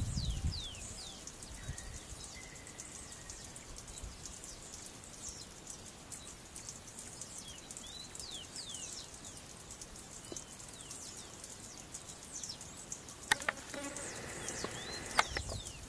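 Countryside ambience: many short, high chirps that fall in pitch, scattered through a steady background. There is a faint held whistle about two seconds in, and two sharp clicks near the end.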